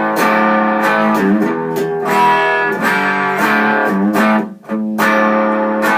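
Electric guitar on its bridge pickup played dry, with no effects, through a small single-ended 6V6 valve amp into a Celestion Vintage 30 speaker: sustained strummed chords that change several times, with a short gap about four and a half seconds in before the next chord.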